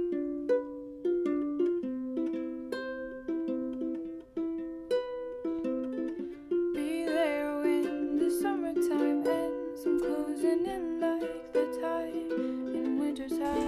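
Background music: a light, plucked-note melody, with a fuller accompaniment coming in about seven seconds in.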